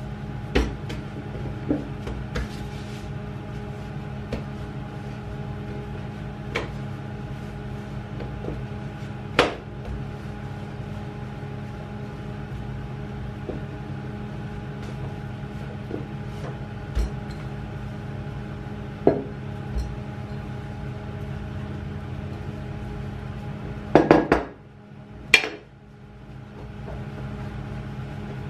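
A heavy wooden rolling pin knocking and tapping on a wooden worktop as bread dough is rolled out. The knocks are scattered every few seconds, with a cluster of louder knocks about 24 seconds in, over a steady low hum.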